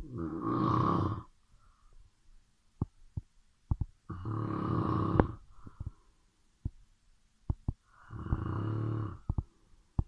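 Snoring in sleep: three long snores about four seconds apart, each lasting over a second, with faint short clicks in the quiet between them.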